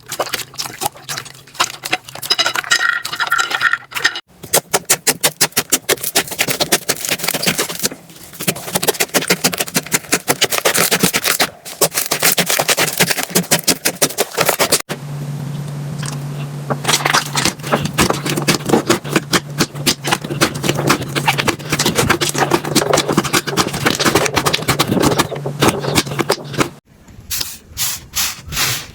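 Slime being squeezed and poked by hand, giving rapid crackling and popping clicks, in several short clips cut one after another. A steady low hum runs under the middle part.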